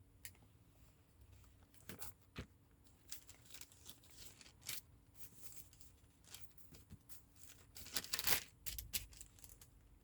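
Thin Bible pages rustling and being turned, a string of soft crinkles that is loudest about eight seconds in.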